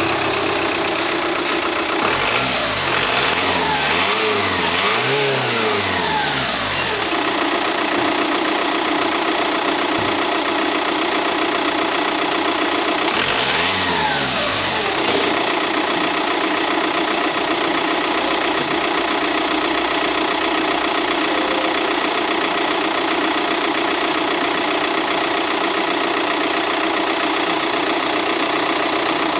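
Audi 2.0 16V TDI (BLB) four-cylinder turbodiesel running just after starting: it idles steadily, is revved up and let fall back a few times a couple of seconds in, and is revved once more about 13 seconds in.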